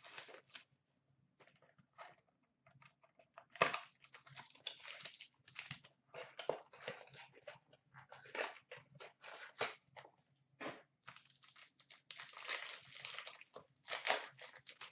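Plastic and foil wrapping on a sealed hockey card box and pack crinkling and tearing as it is opened by hand, in irregular crackly bursts with short pauses between.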